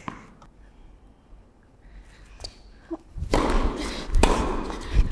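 Tennis ball tapping a few times on a hard indoor court. About three seconds in, play starts and the ball is struck hard by tennis rackets, with sharp hits about a second apart near the end.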